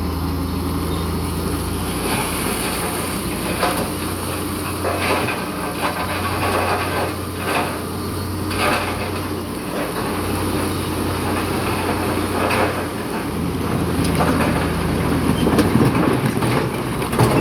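Bulldozer's diesel engine running steadily, its note dipping briefly a couple of times as the load changes, with irregular clanks from the steel crawler tracks and the rock being pushed.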